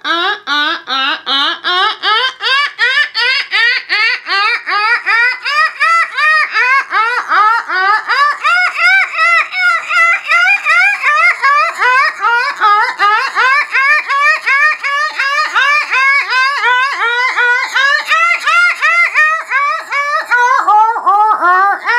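A woman's voice making rapid dolphin-like chirps: a short squeak that rises and falls in pitch, repeated about three times a second without a break. It is offered as channelled dolphin light language.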